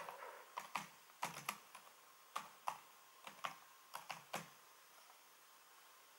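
Faint typing on a keyboard: a quick, uneven run of about a dozen key clicks as a search term is entered, stopping about four and a half seconds in.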